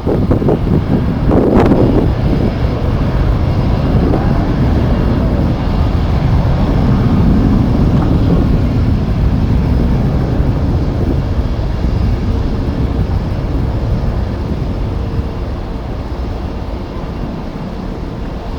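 Strong wind buffeting the microphone over the rumble of jet airliner engines. It surges in gusts early on and fades gradually over the last several seconds.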